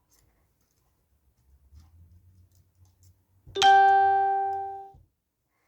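A single bright bell-like ding about three and a half seconds in, ringing and fading for over a second before cutting off suddenly. A faint low hum comes before it.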